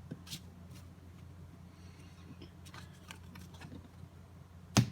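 Trading cards being handled: a few faint clicks and light rustles, then one sharp snap near the end, over a steady low electrical hum.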